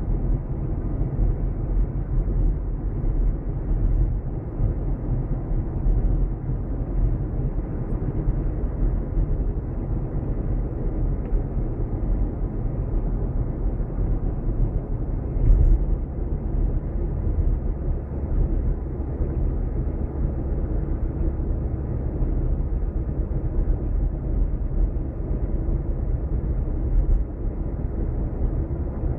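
Steady low rumble of a car driving along a paved road, tyre and engine noise with no changes in pace, and one brief louder bump about halfway through.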